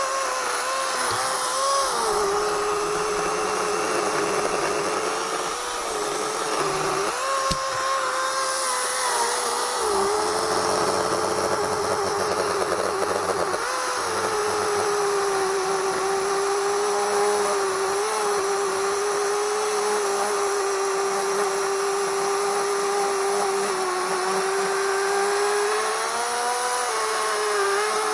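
Chainsaw running while cutting through a tree stump low to the ground, a steady high tone that rises in pitch briefly about three times, at the start, around a third of the way in, and near the end, and settles lower again as the chain bites into the wood.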